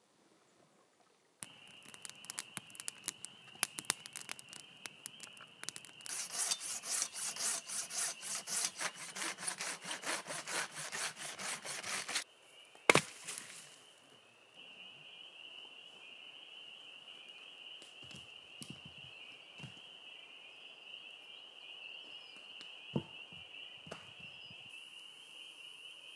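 Hand saw cutting through a log in rapid back-and-forth strokes for about ten seconds, louder after the first few seconds, then stopping. A steady high chorus of spring peepers runs under the sawing and on after it, with a sharp click and a few light knocks.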